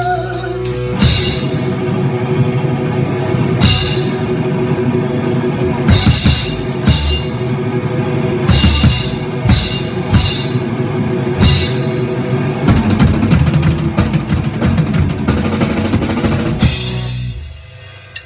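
Rock band playing together: a drum kit with cymbal crashes every second or two over electric guitars and bass guitar. The song stops near the end.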